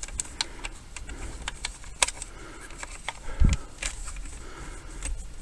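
Scattered light clicks and taps of parts being handled as a steering wheel is fitted back onto a pickup's steering column, with a sharper click about two seconds in and a dull thump about a second and a half later.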